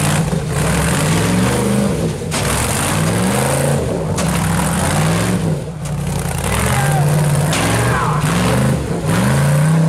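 Rock-crawler buggy's engine revving in repeated throttle bursts, its pitch climbing and falling over and over as it works over boulders, with brief lulls between the bursts.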